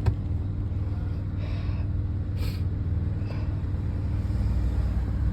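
Car interior noise while driving: a steady low rumble of engine and road, with a faint steady hum and a brief click just after the start.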